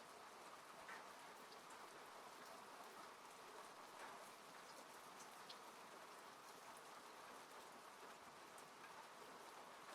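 Faint steady rain falling, an even hiss with scattered single drops ticking, as on a car from inside.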